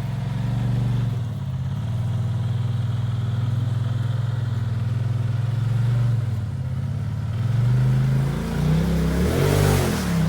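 Turbocharged off-road vehicle engine running under load at a steady pitch while climbing a steep rock chute. Near the end it revs up and down several times.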